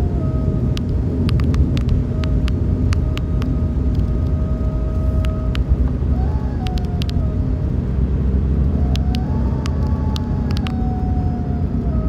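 A car driving, with a steady low rumble of engine and road noise, a faint whine that drifts slowly down and up in pitch, and scattered light clicks and rattles.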